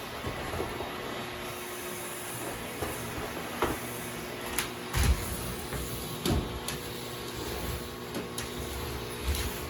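Vacuum cleaner running steadily, with a few sharp knocks and clicks over its hiss.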